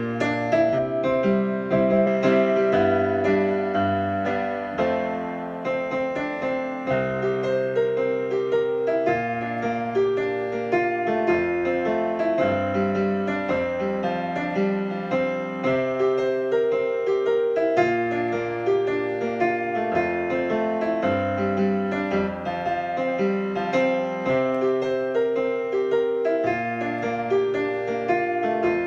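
Digital piano played with a piano voice: held chords over bass notes that change every second or two, with a melody line on top.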